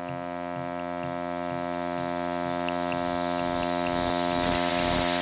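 Intro of a minimal techno track: a held synthesizer drone of many steady tones over a low pulse about three times a second, slowly swelling in volume, with a rising sweep near the end.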